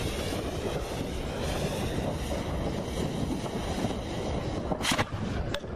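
Fireworks going off: one loud bang near the end, then a quick run of sharper cracks, over a steady rushing noise.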